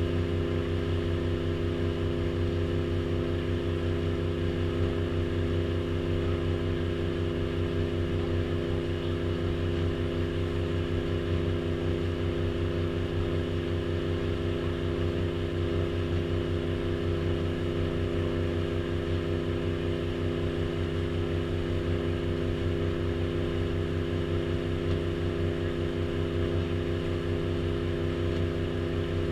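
Tour boat's engine running steadily: a constant low drone that holds the same pitch and level throughout.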